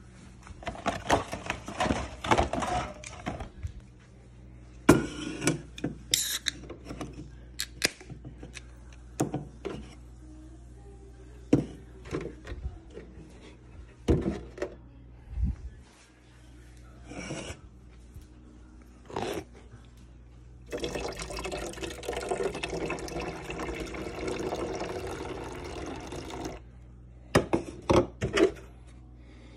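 Liquid pouring or running into a stainless steel kitchen sink for about five seconds, two-thirds of the way in. Before and after it come scattered knocks, clatters and rustles from a plastic milk jug and a plastic bag being handled.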